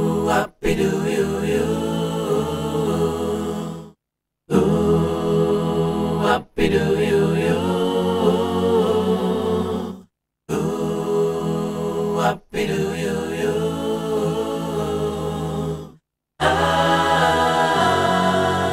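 Playback of a multitracked vocal choir recorded through a Slate VMS ML-1 modelling microphone, singing sustained chords. The sound cuts out completely for a moment three times, about every six seconds, as the playback is switched between the microphone's emulations (unprocessed, U47, U67).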